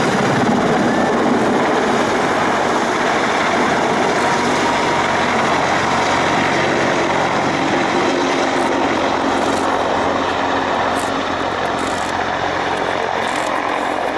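Mil Mi-26 heavy-lift helicopter running on the runway ahead of takeoff: its twin turboshaft engines and eight-blade main rotor make a loud, dense, steady noise that eases slightly after about ten seconds.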